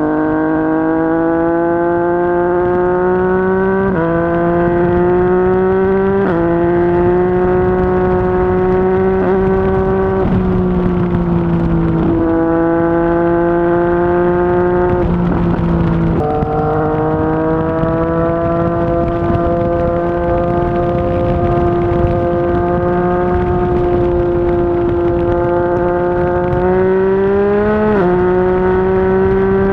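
Yamaha MT-09's inline-three engine running through a Yoshimura R55 slip-on exhaust while riding. The note climbs slowly and steps in pitch several times, at about 4, 6, 10, 12, 16 and 28 seconds. Wind and road noise sit underneath.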